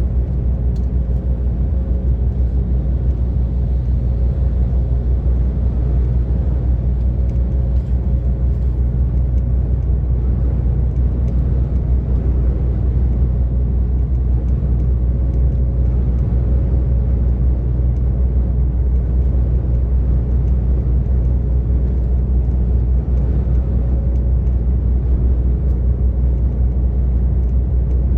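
DAF XF 460 truck's 12.9-litre PACCAR MX-13 inline-six diesel running at a steady cruise, together with road and tyre noise: a deep, even drone with a faint steady whine above it.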